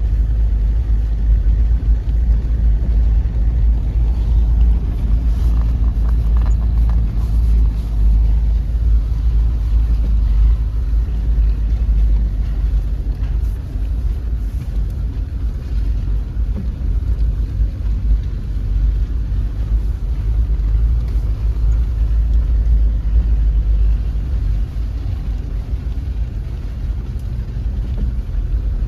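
A vehicle driving along a forest road: a steady low rumble, with light rattling between about four and eight seconds in.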